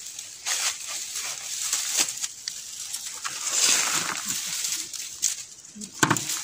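Dry bamboo leaves and twigs crackling and rustling as someone pushes through a bamboo thicket, with a sharp knock about six seconds in.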